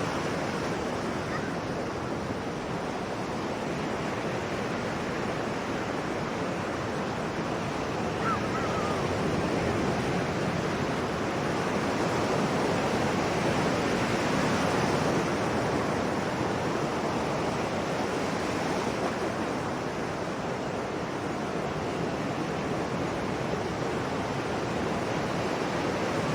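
Sea waves washing onto a shore in a steady rushing wash that swells a little towards the middle.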